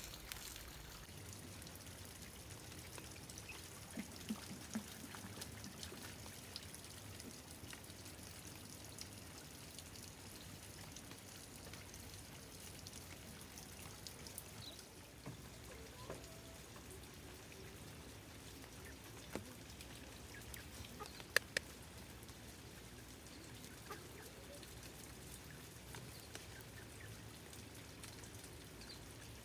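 Faint chopping and scraping of a small hand hoe working loose garden soil, with scattered light knocks and two sharp ones about two-thirds of the way in.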